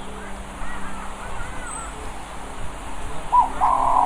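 Birds chirping and calling, faint at first, then a run of short, louder calls near the end, over a faint steady hum.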